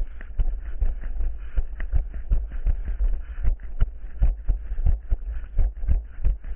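Running footsteps, about three a second, over a steady low rumble.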